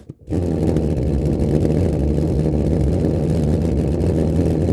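Alcohol vapour in a glass jar lighting with a sharp pop, then pulse combustion through the 10 mm hole in the lid: a loud, steady, low buzz of the flame pulsing in and out, like a tiny pulse jet engine.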